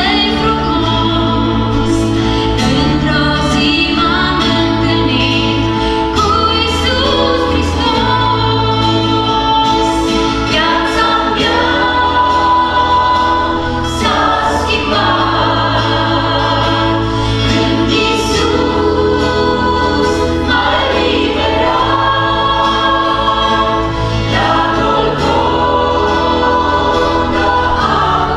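A small mixed group of men and women singing a gospel hymn together, backed by electric bass and acoustic guitar, with the bass moving from note to note every second or two.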